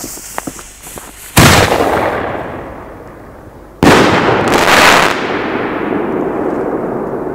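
50 mm single-shot firework shell: a loud bang about a second and a half in, then the shell bursting with a loud bang about two and a half seconds later and another report close after it, each followed by a long rumbling echo.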